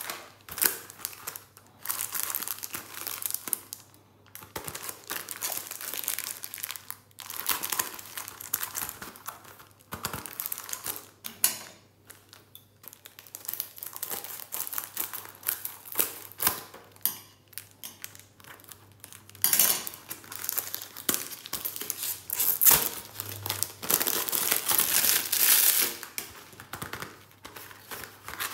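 Plastic wrapper of a chocolate creme wafer pack crinkled and torn open by hand, in irregular bursts of crackling rustle with short pauses between.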